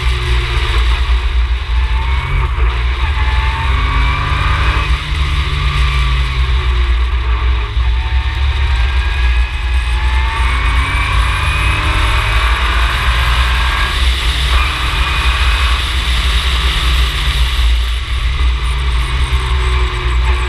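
Ginetta G20 race car's engine being driven hard through the gears: its pitch climbs several times and drops back at each gear change or lift, over a heavy low rumble.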